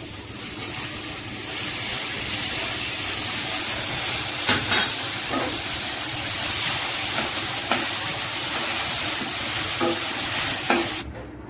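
Corn, carrots, beans and onions sizzling in butter in a pan while a wooden spatula stirs them, with a few knocks of the spatula against the pan. The sizzle cuts off suddenly near the end.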